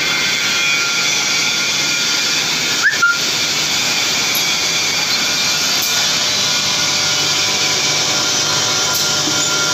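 Eye drop filling, plugging and capping machine running: a steady mechanical hiss and hum, with two sharp clacks close together about three seconds in.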